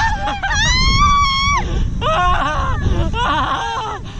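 People screaming on a slingshot thrill ride: long, high-pitched screams that rise and fall, several voices overlapping in the middle, over a steady low rumble.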